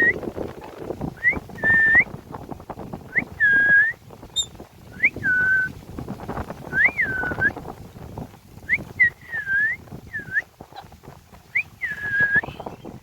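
Indian ringneck parrot giving repeated whistled calls, about seven of them, each a quick upward sweep followed by a held, bending note, with a low rustling noise beneath.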